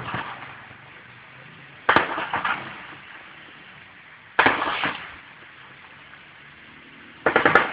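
Short bursts of automatic gunfire, three of them roughly two and a half seconds apart after the tail of an earlier burst. Each burst is several rapid shots that trail off in an echo.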